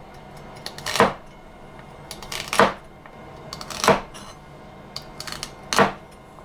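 Kitchen knife slicing through celery sticks and striking a chopping board: four loud cuts roughly a second and a half apart, with lighter taps between.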